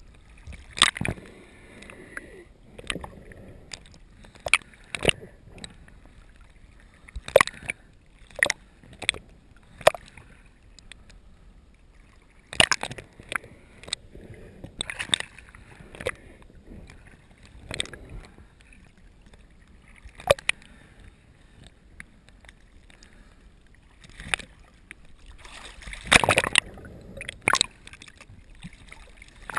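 Water sloshing and gurgling around the camera, with irregular sharp splashes every second or few and a longer, louder rush of water near the end.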